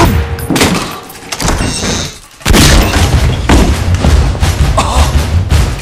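Gunshots: a loud shot right at the start and another about half a second in, then after a short lull a rapid run of shots and booms.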